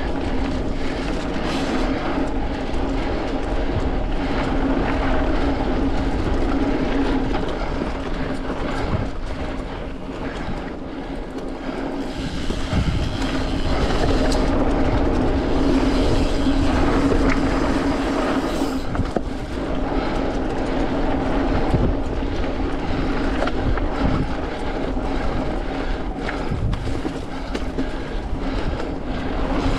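Mountain bike being ridden fast along a dirt singletrack trail: a steady rolling and rattling noise from the tyres and drivetrain, with a constant hum under it.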